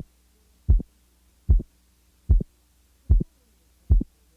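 Heart sounds beating steadily at a little under 80 a minute, about six beats, each a short double thump. The second heart sound is split by 75 milliseconds, the aortic component closing before the pulmonic.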